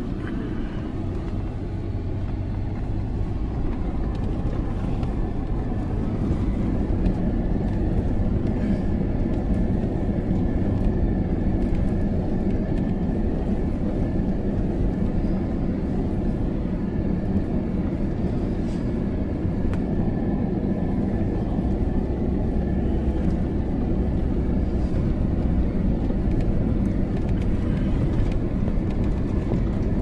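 Steady low rumble of a four-wheel drive's engine and tyres as it crawls over the loose rocks of a dry river crossing, heard from inside the cabin.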